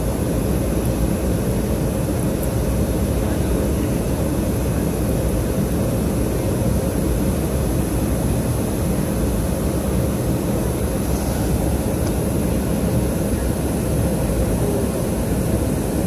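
Steady noise of a jet airliner's engines and rushing air heard from inside the passenger cabin, an even low rumble with a faint constant hum.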